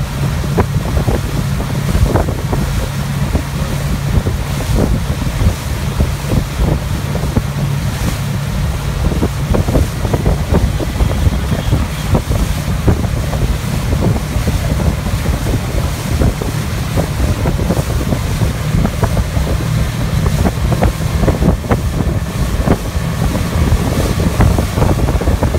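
Wind buffeting the microphone over the steady drone of a motorboat's engine and the rush of its churning wake while it tows a rider at speed.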